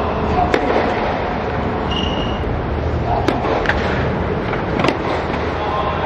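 Tennis balls being struck by rackets and bouncing on an indoor court, a few sharp pops over a steady background noise, with a brief squeak about two seconds in.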